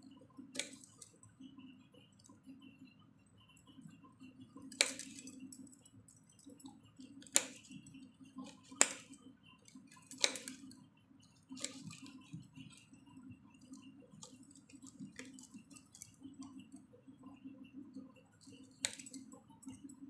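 Kitchen knife slicing bitter gourd into long thin strips, the blade striking a stone countertop in sharp clicks every second or few, at an uneven pace.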